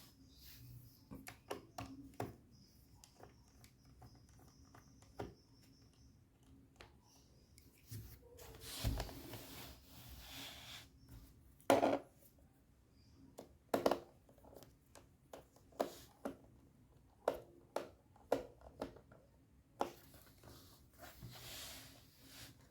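Hands handling a laptop and small parts: scattered clicks, taps and light knocks on plastic, with a longer scraping rustle about nine seconds in and another near the end.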